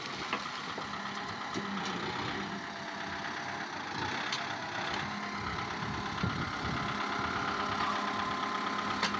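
Kubota tractor's diesel engine idling steadily, with a few faint clicks.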